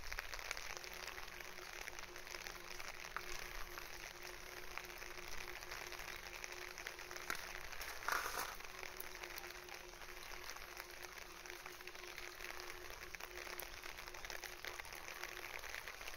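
Steady rain pattering, a dense even spray of fine drops, with a faint steady hum under it and one brief louder sound about eight seconds in.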